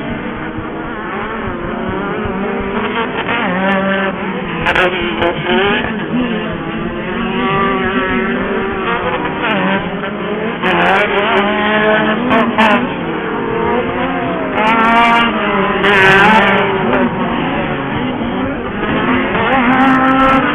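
Several off-road race buggy engines running hard together, their notes rising and falling as they rev, shift and pass.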